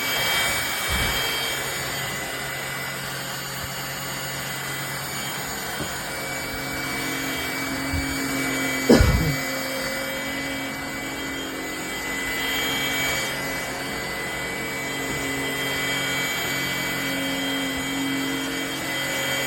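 Tdyon cordless stick vacuum cleaner running steadily, a high motor whine over a rushing hiss. There is a sharp knock about nine seconds in.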